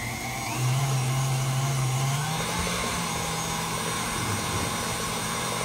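KitchenAid Artisan stand mixer running with its wire whisk in a glass bowl of liquid batter, a steady motor hum. About half a second in it gets louder and its pitch climbs for a couple of seconds as the speed is turned up, then holds steady.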